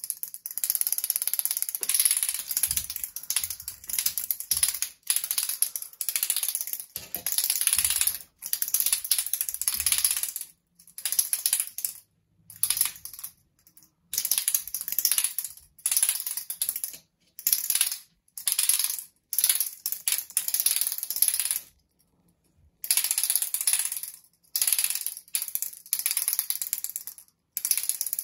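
Clappurr cat wand toy being shaken, its plastic hands clacking together in bursts of rapid clicking, each a second or two long, with short silent gaps between them.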